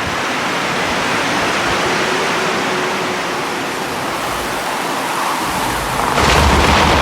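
Forest rainstorm: steady heavy rain and wind, with a roll of thunder starting deep and low near the end and breaking into a louder crack.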